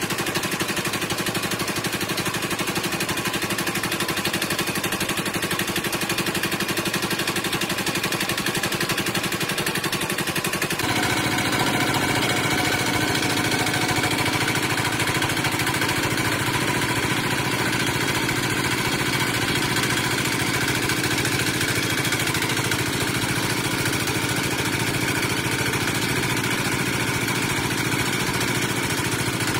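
Wood lathe motor running steadily with a fast, even rattle, as the turned workpiece spins and is polished with a cloth. The running tone changes abruptly about eleven seconds in.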